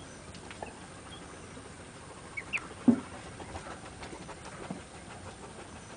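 Faint, scattered peeping from a brood of young poultry, Muscovy ducklings and guinea keets, with a short louder sound about three seconds in.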